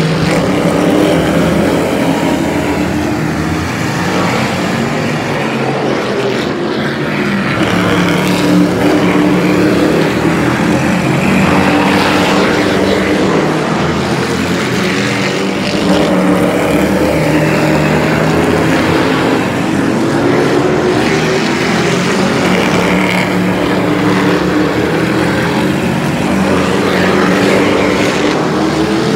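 Engines of a pack of super trucks, stock-car racing pickups, running hard as they lap a short oval. Loud and continuous, swelling and easing a little as the pack passes.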